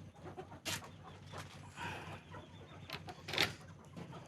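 Chickens clucking, the flock stirred up, with a few short sharp sounds, the loudest about three and a half seconds in.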